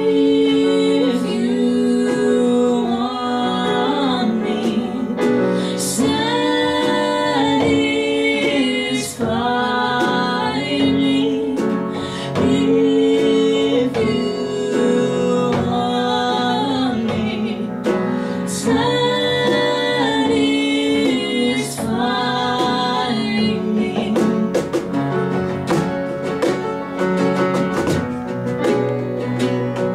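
Live acoustic ballad: a woman singing over upright piano, strummed acoustic guitar and cajón. About three quarters of the way through the singing drops out and the strummed guitar and percussion carry on.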